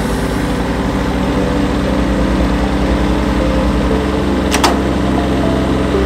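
Tractor engine running steadily, with one sharp click or knock about four and a half seconds in.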